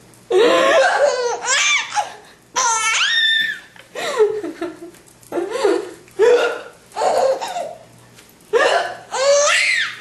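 A baby laughing in a string of short, high-pitched bursts, roughly one a second. The laughter is her reaction to a woman's hiccups.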